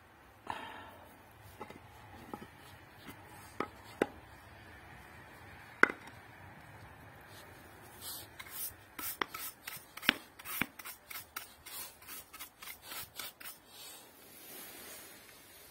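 Dry earth and gravel scraped by a hand tool. A few separate knocks of stone in the first half, then a quick run of short scraping strokes, about three a second, from about eight seconds in until near the end.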